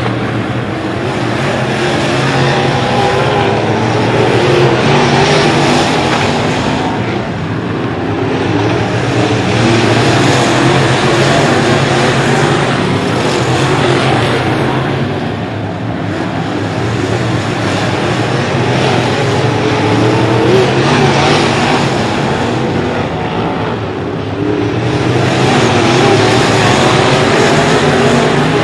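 A pack of dirt-track race cars' V8 engines running hard at racing speed, swelling as the field comes past and fading as it goes down the far side, about every eight seconds.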